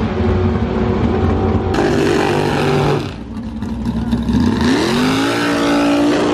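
Drag-racing car engines running loud. About halfway through the sound drops, then one drag car's engine revs up smoothly and holds at high, steady revs, as for a burnout.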